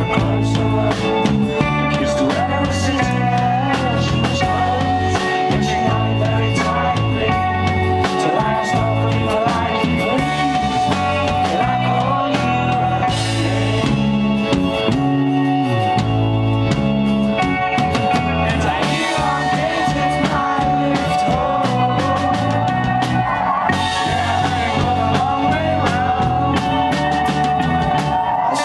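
Live rock band playing a song: a man singing over a strummed acoustic guitar, with a bass line and drum kit keeping a steady beat.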